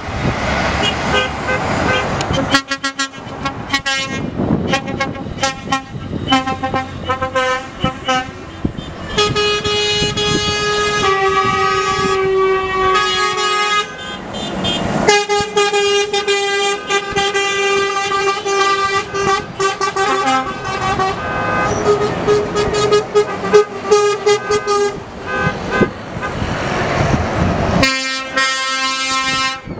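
Convoy of heavy trucks passing, sounding air horns in long, overlapping blasts of several pitches at once, with shorter toots in the first few seconds and engine and tyre noise between.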